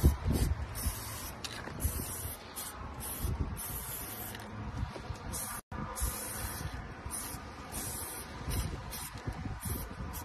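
Aerosol spray-paint can hissing in a run of short on-and-off bursts as graffiti letters are sprayed onto a wall.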